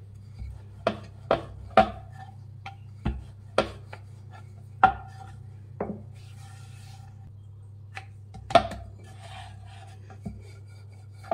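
Wooden rolling pin rolling and knocking on a wooden board as maida dough is rolled out thin, giving about a dozen irregular sharp knocks and soft rubbing.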